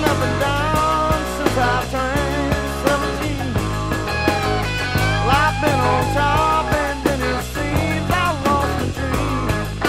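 Rock music: an electric lead guitar bending notes over a steady drum and bass beat.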